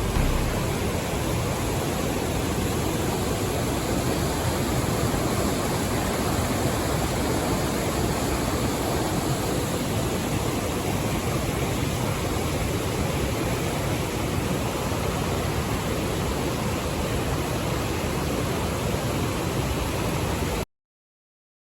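Waterfall: steady rushing of falling water, which cuts off suddenly near the end.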